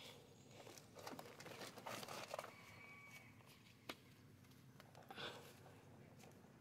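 Near silence with faint rustling and a few light clicks and knocks from hand work on a serpentine belt and its tensioner, with one sharp click about four seconds in.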